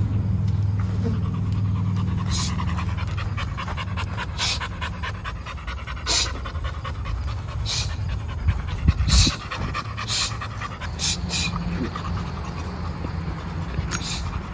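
Pit bull panting on a leash in the heat, in short breathy strokes every second or two. A low steady rumble runs underneath, with a brief louder burst about nine seconds in.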